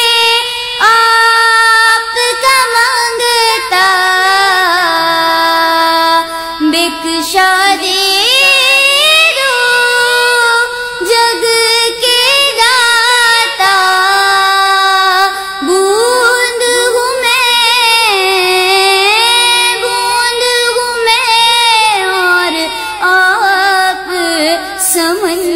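A young woman singing a naat, an Urdu devotional song, in long held notes that waver and glide from pitch to pitch.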